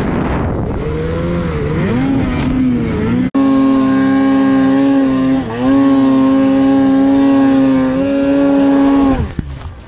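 Snowmobile engine running at high revs in deep powder, heard from the rider's seat. The pitch holds steady with a few brief dips as the throttle is eased, then falls away near the end.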